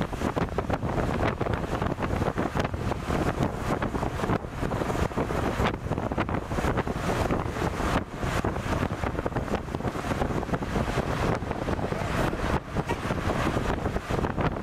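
Wind buffeting the microphone at the open window of a moving 4x4, with road noise from the vehicle underneath.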